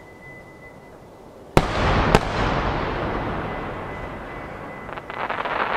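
Two 12-inch aerial firework shells bursting: two sharp booms about half a second apart, followed by a long rolling echo that slowly dies away. About five seconds in, a dense crackling from the shells' crackle stars begins.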